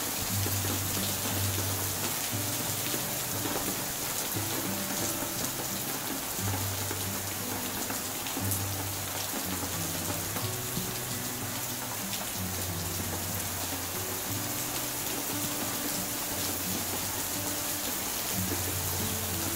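Heavy rain pouring onto a wet paved courtyard, a dense steady hiss of drops hitting puddled concrete. Beneath it runs background music with low sustained notes that change pitch every second or so.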